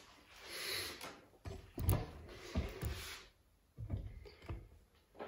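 Faint handling noise: a soft rustle, then several light knocks and clicks from about one and a half to three seconds in, with a couple more near the end.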